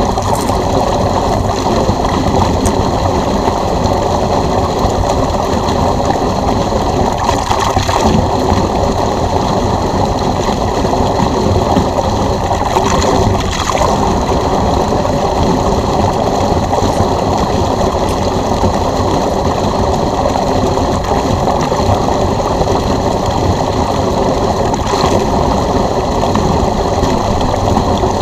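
Electric pool pump running steadily, pushing water out through a drain hose as the pool is drained. A few brief surges come through, around 8, 13 and 25 seconds in.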